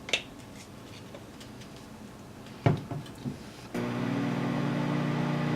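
A sharp knock and a few lighter clicks, then a microwave oven starts running with a steady electrical hum about three and a half seconds in, softening peanut butter and Nutella.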